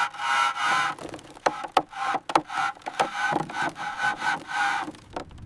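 A hand tool rubbing on old wood in rhythmic back-and-forth strokes, about two a second, with sharp clicks among them. This is scraping or sanding of weathered porch beams.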